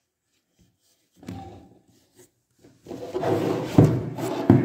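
Handling noise: a brief soft rub, then about three seconds in a louder run of rubbing and scraping with two sharp knocks near the end.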